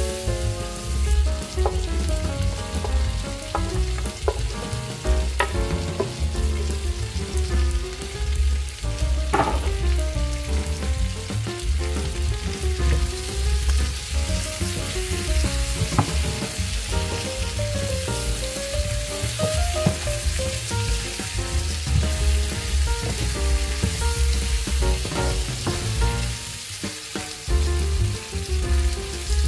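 Vegetables sizzling in a non-stick frying pan as they are stirred with a wooden spatula, which knocks against the pan a few times. Underneath run a low pulsing hum and steady pitched tones.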